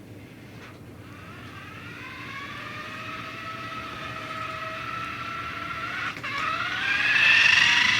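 Electric motor of a remote-control toy car whining as it runs, its pitch climbing as it speeds up. Just after six seconds there is a click and the pitch drops, then it rises quickly again and is loudest near the end.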